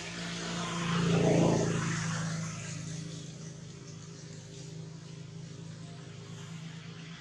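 A motor vehicle's engine passing by: its sound swells to a peak about a second and a half in, then fades back to a steady low engine hum.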